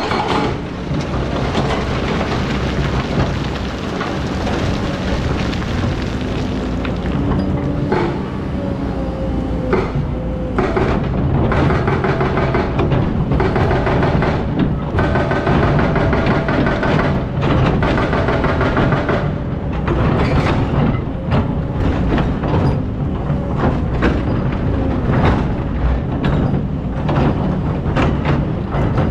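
Excavator's diesel engine running under load, with a wavering hydraulic whine and frequent knocks and clanks of the bucket working in sand and stones.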